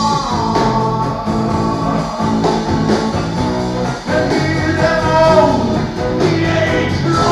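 Guitar-led rock and roll song with singing.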